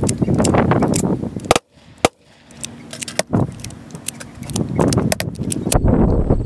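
Rattling and clicking handling noise, like gear jangling while someone walks with the camera. Near the end, wind buffets the microphone.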